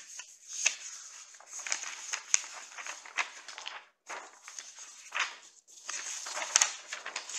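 Sheets of paper being leafed through and shuffled, rustling with scattered sharp crackles and a brief pause about four seconds in.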